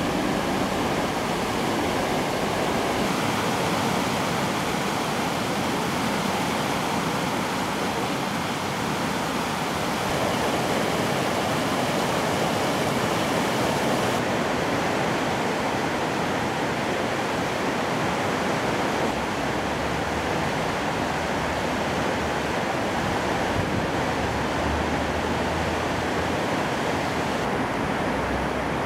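Floodwater of the swollen Bow River rushing and pouring, a steady, unbroken noise of fast water. A few low rumbles come in during the second half.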